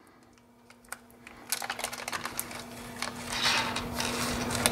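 Small clear plastic parts bag being opened and handled: a few light clicks, then crinkling plastic that grows louder from about a second and a half in.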